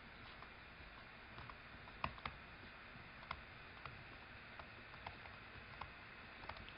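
Faint, irregular taps and clicks of a stylus writing on a tablet, over quiet room hiss, with a couple of slightly louder taps about two seconds in.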